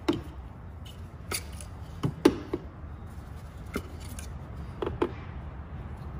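Ignition coils being handled and set down one after another: a scattered series of sharp plastic clicks and knocks, about eight in all, over a low steady hum.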